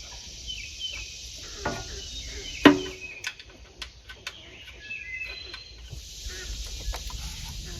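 Small sharp clicks and taps of a part being handled and screwed in, mostly in a cluster about three to four seconds in, with birds chirping and a couple of short animal calls in the background.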